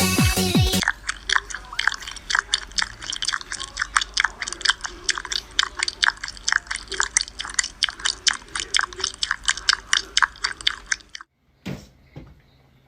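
An animal chewing crunchy food: a quick, even series of crunches, about four or five a second, that stops abruptly.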